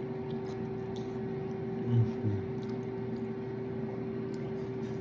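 Steady electrical appliance hum with a constant pitch, under two brief low 'mm' sounds from a person's voice about two seconds in and faint small clicks of eating.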